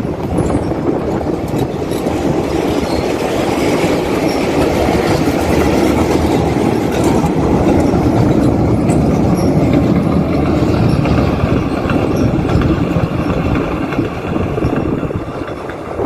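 A diesel-hauled passenger train rolling past on the rails: a steady, loud rumble of wheels and coaches with light clicking over the rail joints.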